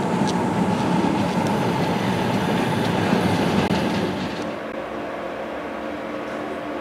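Passenger train coaches rolling slowly past along a station track: a steady rumble of wheels on rails with a few sharp clicks. The noise drops and turns duller about four and a half seconds in.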